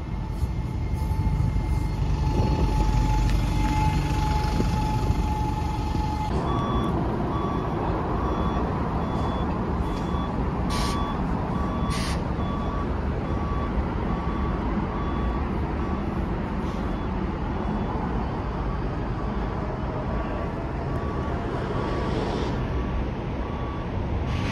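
A single-deck bus's diesel engine running as it pulls away. Then a double-decker bus manoeuvring, its reversing alarm sounding a repeating beep over the engine, with two short hisses of air, typical of air brakes, near the middle.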